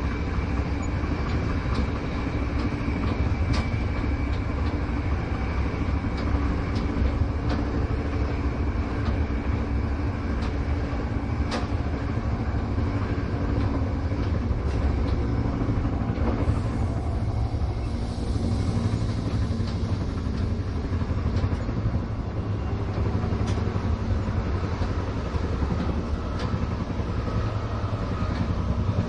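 Inside a moving train: a steady low rumble of the carriage running on the rails, with scattered sharp clicks and knocks.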